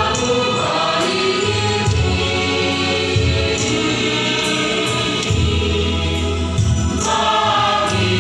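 Gospel choir singing in harmony over instrumental backing with a steady bass line.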